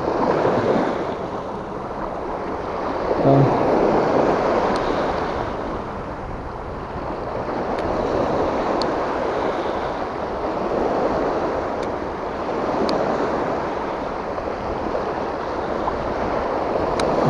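Small waves washing in over a rocky reef shore, the surf swelling and easing every few seconds. A few faint clicks sound over it.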